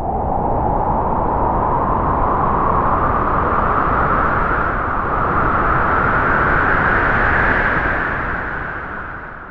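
A single gust of wind: a rushing noise that rises slowly in pitch and swells, then fades out near the end.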